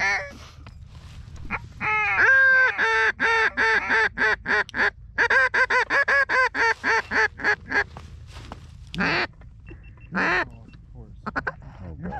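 Ducks quacking in a fast, evenly spaced run of about four quacks a second, followed by two longer, lower calls and a few short notes near the end.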